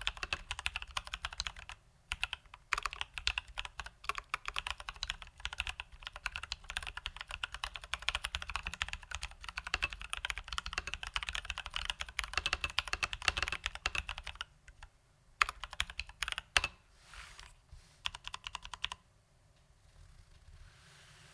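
Fast typing on a Leopold FC980M mechanical keyboard with Krytox 205g0-lubed Durock T1 tactile switches and stock keycaps: a dense stream of keystrokes with a brief pause about two seconds in. After about 14 seconds it thins to a few scattered presses, then stops a couple of seconds before the end.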